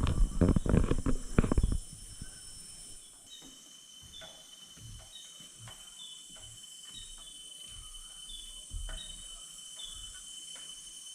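Loud thumps and knocks for about the first two seconds. Then a steady rainforest insect chorus, with a constant high drone and a short chirp repeating about every two-thirds of a second, over soft scattered thumps.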